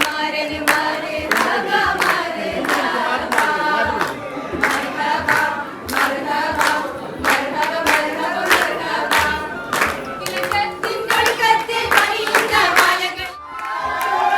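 A group of voices singing together with hand claps in a steady beat, about one and a half claps a second.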